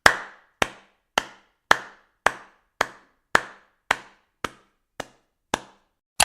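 Evenly spaced wooden-sounding knocks from the percussion of a background music track, about two a second, each with a short fading ring. The later knocks are a little quieter, and a quick double knock closes the run.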